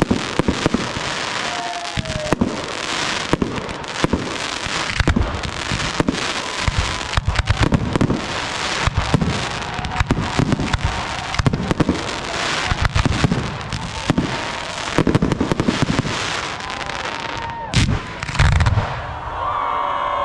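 Fireworks display: a dense barrage of aerial shells bursting, several sharp bangs a second over continuous crackling, thinning out near the end.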